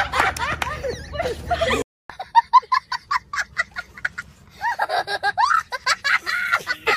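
Excited shouting and laughter that cuts off sharply about two seconds in, followed by a young child laughing hard, first in quick short bursts, then in longer peals.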